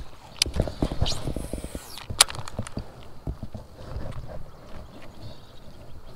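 Irregular knocks and clicks of fishing rod, reel and kayak handling as a freshly cast lure is worked back, with the sharpest click about two seconds in and a brief hiss between one and two seconds.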